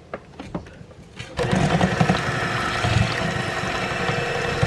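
An electric mixer switched on about a second and a half in and running steadily, beating cream and icing sugar into whipped cream. A few light clinks come before it starts.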